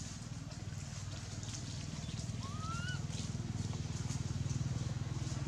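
A small engine running with a rapid low pulse, growing steadily louder. One short rising call about halfway through.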